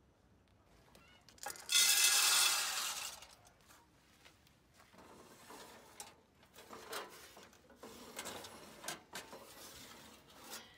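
Sheet-steel parts of a pellet rocket stove being handled: a loud metallic scrape about two seconds in, then a run of lighter clanks and rattles as the front door and grate of the firebox are worked open.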